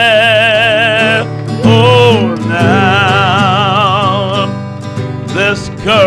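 A man singing long held wordless notes with a wide vibrato, in several phrases, the longest about two seconds, over a strummed acoustic guitar.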